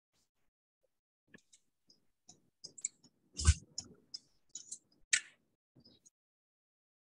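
Irregular clicking and tapping, with two louder knocks about three and a half and five seconds in.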